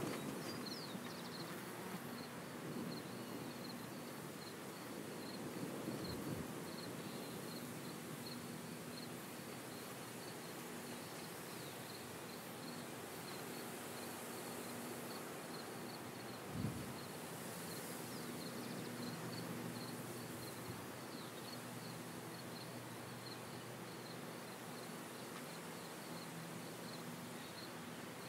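Faint open-field ambience: an insect chirping in an even, repeating rhythm over a low, steady hum from the distant John Deere S550 combine harvesters at work. A single brief low thump comes about two-thirds of the way through.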